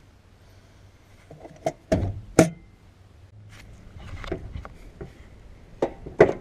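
Clicks and knocks of a car hood being opened on a 2013 Honda Pilot: the release pulled, the latch popping, the hood lifted and propped, the sharpest snaps about two and a half seconds in and near the end. A low, steady hum runs underneath.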